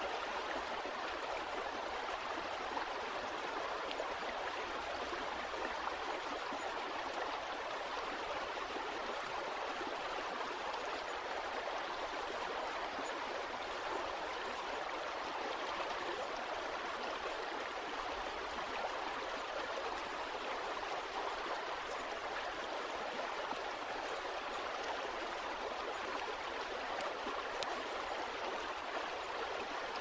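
Small river flowing: a steady, unbroken rush of running water.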